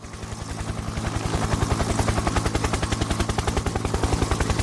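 Intro sound effect: a fast, even pulsing, about thirteen beats a second, over a low steady hum, fading in over the first second.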